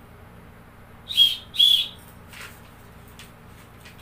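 A hand whistle blown twice in short blasts, one right after the other: the tour guide's signal for the group to fall in line and head back to the bus for the next destination.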